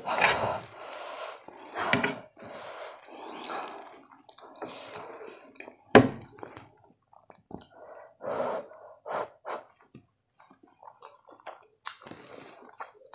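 Close-miked wet chewing and slurping of saucy spicy Korean instant noodles, in uneven bursts with short pauses. About six seconds in there is a single sharp clink of a metal fork against the plate, the loudest sound.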